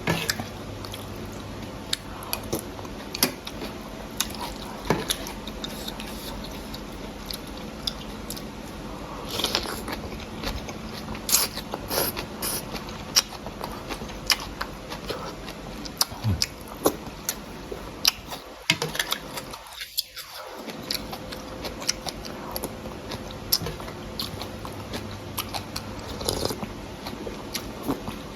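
Close-up eating sounds: a person chewing and biting food, irregular small clicks and crunches, with a low hum underneath at times.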